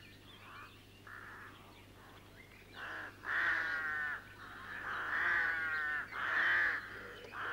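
A flock of rooks cawing: faint calls at first, then several loud caws from about three seconds in, each just under a second long.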